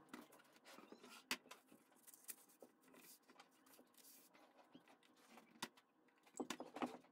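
Quiet handling sounds of a picture frame on a wooden workbench: soft scrapes and knocks as it is moved, then small clicks and scratches of needle-nose pliers working at the frame's paper-backed back. A sharp click comes a little over a second in, and a cluster of clicks and scrapes comes near the end.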